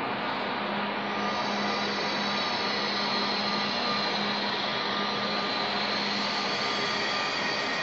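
High-speed electric train moving off slowly from the platform: a steady electric whirr and hum with a constant low tone, widening slightly about a second in.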